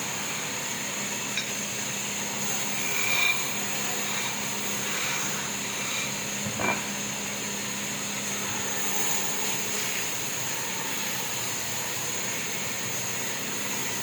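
Sawmill machinery running steadily, with a high-pitched hiss over a low hum, broken by a few brief knocks.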